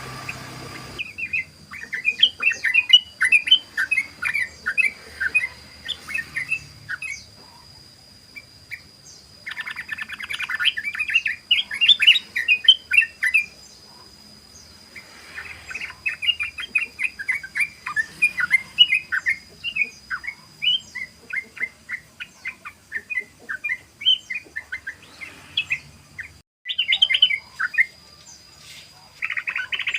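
Yellow-vented bulbul (trucukan) singing its fast chattering 'ropel' song: long runs of quick, rapid-fire notes broken by short pauses. A faint steady high whine sits underneath.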